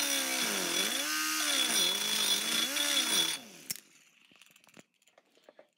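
Die grinder coping the end of a 4130 chromoly roll-cage tube. Its high whine sags in pitch about once a second as the burr bites and recovers as it eases off, then stops about three and a half seconds in, followed by a few faint clicks.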